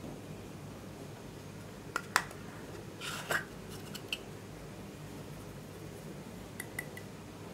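Small plastic clicks and a short scraping twist as the cap comes off a little plastic jar of loose glitter eyeshadow, the sharpest click about two seconds in and another about four seconds in. A few faint ticks follow near the end as the jar is handled over the tray.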